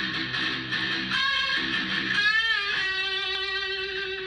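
Intro music: an electric guitar plays a repeated riff, then bends a note about two seconds in and ends on a long held note.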